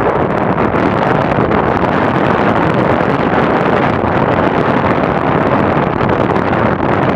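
Strong wind blowing hard on the microphone over a steady roar of surf on the lake shore, with no let-up.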